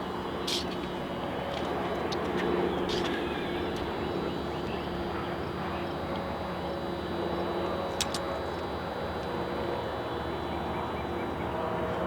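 Steady engine drone, several even tones over a noise haze, with a few faint clicks.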